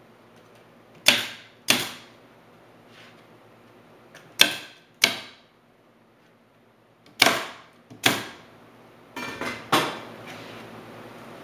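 Pneumatic stapler firing staples through half-inch plywood into wooden corner posts: six sharp shots in three pairs, the shots of each pair about half a second apart with a few seconds between pairs. A few lighter knocks follow near the end.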